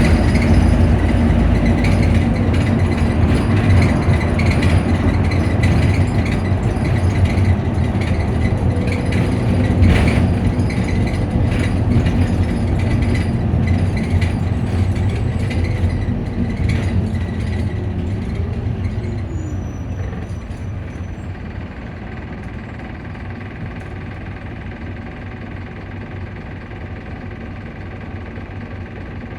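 Optare Solo bus engine running with its cooling fan going, a low hum with rattles. About twenty seconds in, the noise eases off to a quieter steady run.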